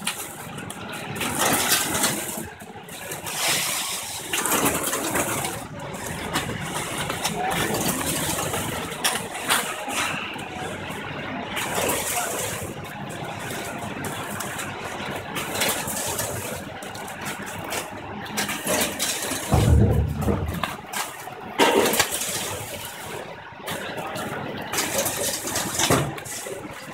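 Four-head weigher chips packing machine running: a steady mechanical noise with irregular clicks and clattering, and a brief low rumble about three-quarters of the way through.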